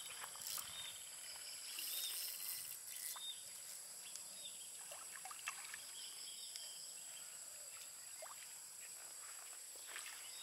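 Steady high-pitched drone of tropical insects, with a few faint clicks and a short stretch of fine ticking about two seconds in.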